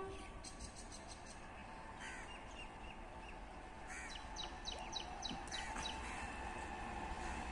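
Faint bird calls: crows cawing a few times, and a small bird giving a quick run of short, high, falling chirps about four seconds in, over a quiet low background.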